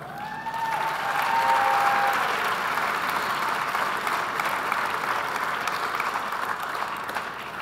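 Audience applauding, swelling over the first two seconds and then slowly tapering off.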